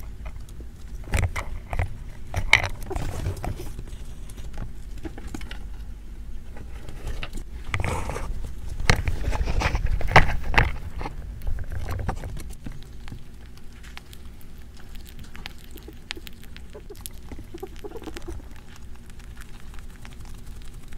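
Two pet rats eating and moving about on a miniature table, with a patter of small clicks and scratches from their feet and claws and crackly bursts from handling and chewing food. The busiest, loudest stretch comes about eight to eleven seconds in, with quieter scattered clicks afterwards.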